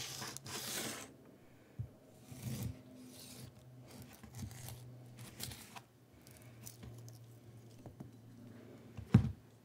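Chef's knife slicing through a whole skin-on avocado on a cutting board: several scratchy, rasping strokes as the blade cuts rind and flesh, then lighter clicks. A single sharp knock near the end is the loudest sound.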